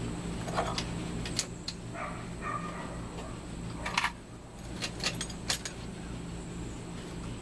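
Steel lifting chain clinking and rattling as it is handled: a series of sharp metallic clinks, the loudest about four seconds in, over a steady low hum.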